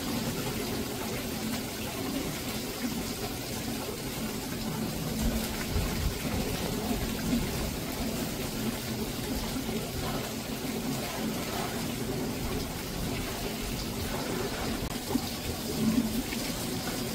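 Steady monsoon rain falling, with water running and splashing.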